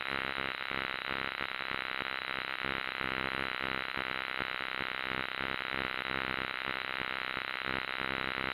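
A steady buzzing drone with a rapid, even pulse, unchanging throughout.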